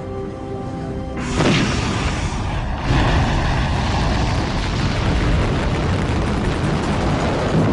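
Held music tones cut off by a sudden explosion boom a little over a second in, then a second blast near three seconds. A continuous heavy rumble of the blast follows.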